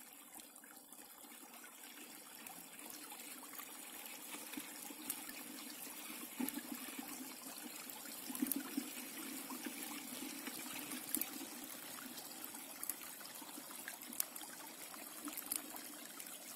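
Faint steady trickle of water, with scattered small clicks from a crab being handled in the fingers.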